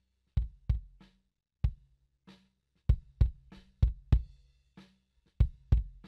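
Recorded acoustic kick drum track played back on its own, about a dozen sharp low thumps in an uneven drum pattern with near silence between them. It is run through the Kristalizer hard-limiter distortion plugin, which pushes its drive for a punchier, more squashed kick.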